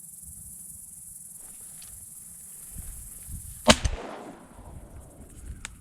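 A single shotgun shot about two-thirds of the way through, loud and sudden with a short ringing tail, over a steady high buzz of crickets. A smaller sharp click follows near the end.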